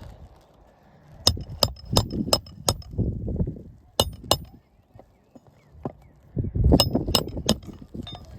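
Hammer striking roofing nails on an asphalt shingle roof, in quick sets of sharp metallic blows with a short ring: five blows, a pause, two more, then three near the end.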